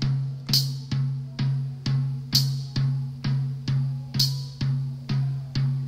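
Layered drums and marching percussion playing a steady pop beat at about two hits a second. A deep bass-drum boom sounds on every beat, with snare strokes between them and a bright cymbal crash about every four beats.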